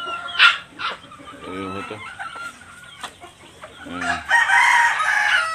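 Gamefowl chickens clucking, with a sharp, loud squawk about half a second in. Near the end a rooster crows for about a second.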